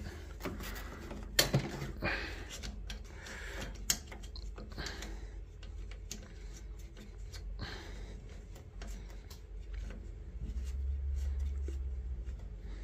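Small metallic clicks and rustling as a braided stainless flexible hose is handled and its nut hand-threaded onto a brass boiler water connection, with a sharper click about a second and a half in and another about four seconds in. A low rumble rises for a couple of seconds near the end.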